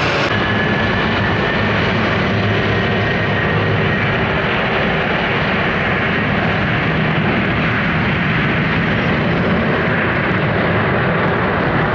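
Airliner engines running loud and steady at close range, a continuous dense roar with a faint whine in it during the first few seconds.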